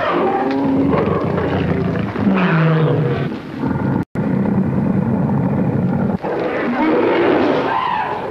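Old film soundtrack of creature roars and growls, loud and continuous, with several roars falling in pitch; the sound cuts out for an instant about four seconds in.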